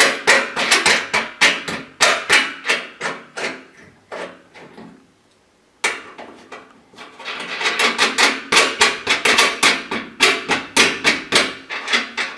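Wing nuts being hand-spun onto threaded studs to fasten a metal handle to a corrugated metal hurricane shutter panel: quick metallic clicking and rattling of the nut and handle against the panel, several clicks a second. It comes in two runs, with a pause of about a second and a half near the middle.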